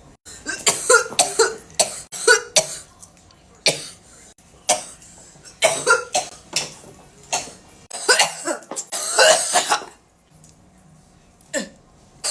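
A person coughing hard in repeated fits after a long vape hit (a 'blinker'), with a longer stretch of rough hacking and throat clearing, then a lull and one last cough near the end.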